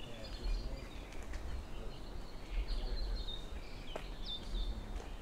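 Forest birds chirping, with many short high calls and a couple of down-sliding whistles about four seconds in, over an intermittent low rumble.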